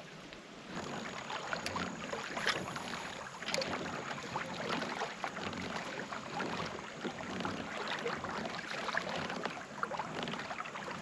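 Water splashing and lapping against a moving kayak's hull, an irregular patter that starts about a second in.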